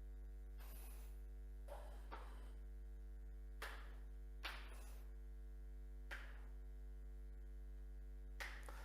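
Near silence: a steady low electrical hum, with about seven faint, brief soft noises scattered through it.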